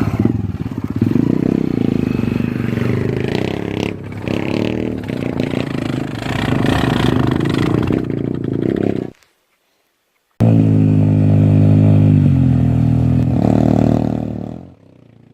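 A motor vehicle's engine running loudly and shifting in pitch as it revs, with some clatter. The sound cuts off abruptly about nine seconds in, comes back a second later, and fades out near the end.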